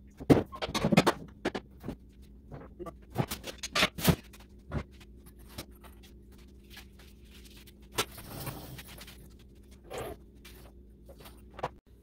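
Knocks, clatter and scraping as a metal grille panel and boxes are moved about by hand, with a burst of sharp knocks in the first few seconds and a longer scrape about eight seconds in.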